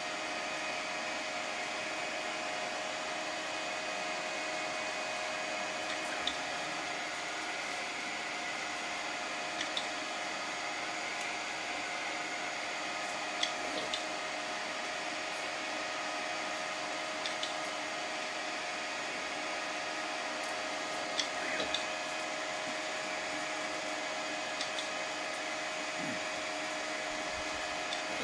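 Large gantry 3D printer running mid-print: a steady whir of fans and motors with a constant hum. Short faint ticks come every three to four seconds, some in pairs.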